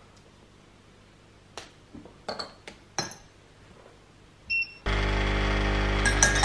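Dishes clink lightly a few times, then a kitchen appliance beeps once and starts up with a loud steady electric hum just before the end.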